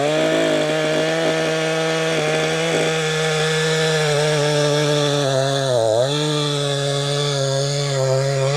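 Gasoline chainsaw running at full throttle, bucking a tulip poplar trunk into logs. Its note holds steady, sagging briefly about six seconds in as the chain loads up in the wood, and the chain is pulling chips.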